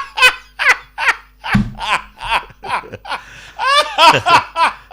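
People laughing heartily in a small room, in repeated short bursts of voiced laughter.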